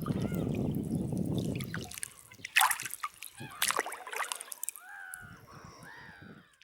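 Water trickling and splashing, with a few sharp splashes in the middle and short rising-and-falling chirps near the start and end.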